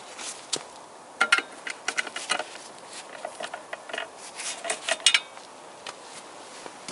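Wrench clicking and clinking on the clutch pressure-plate bolts as they are loosened a little at a time, in two bursts of sharp metallic clicks.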